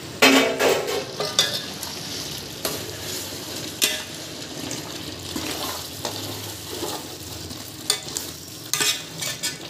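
Half-cooked chicken masala with yogurt bubbling and sizzling in a large metal pot, stirred with a utensil that scrapes and knocks against the pot now and then, loudest just after the start.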